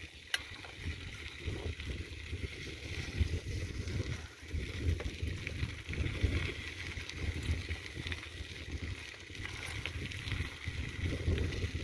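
Wind buffeting the microphone while riding a bicycle down a dirt road, a steady uneven rumble with hiss above it. A single sharp click comes just after the start.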